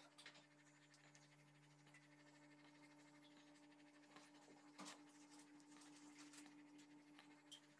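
Near silence: a faint steady low hum with a couple of soft clicks.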